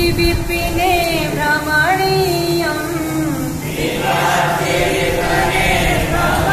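Chanting: one voice sings long held, gliding notes, then from about four seconds in many voices chant together in unison.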